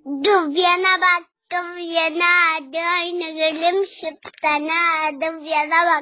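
Young girl singing a song alone in a high voice, in short phrases with two brief pauses for breath.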